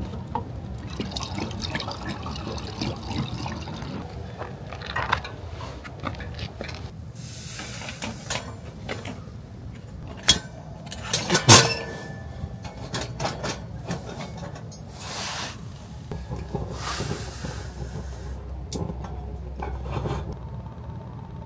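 Kerosene trickling from a plastic jerry can through a funnel into the fuel tank of a Paseco Camp-10 Sunset kerosene heater for the first several seconds. Then a few sharp metal clicks and clanks as the heater is handled, the loudest about halfway through.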